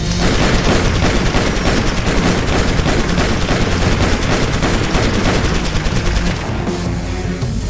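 Rapid automatic gunfire, one long continuous burst of shots, with music underneath. It fades somewhat near the end.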